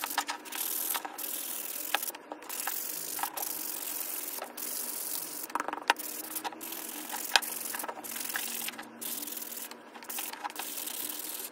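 A sanding block rubbed by hand along the edge of a small piece of wood: a run of scratchy sanding strokes with brief pauses between them and a few sharp clicks.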